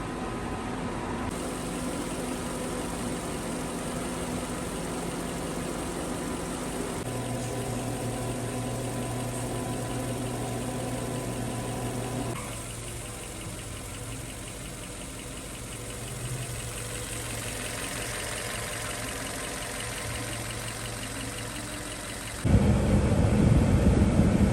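Machinery running with a steady hum that changes in pitch and level in a few steps, dropping quieter about halfway through. About two seconds before the end, a much louder, rougher running sound starts abruptly.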